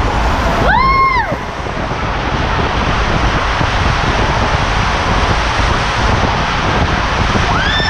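Rushing water and air noise as an inflatable raft slides down the AquaDuck water coaster's tube, heard on a rider-worn camera. A high squeal rises and falls about a second in, and another starts near the end.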